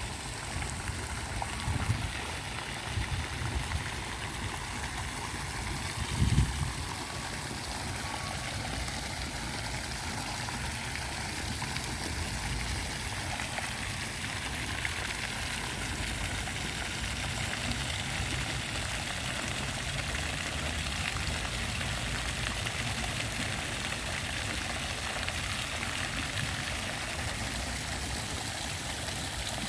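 Steady rushing of running water, like a stream, with a few low bumps in the first several seconds.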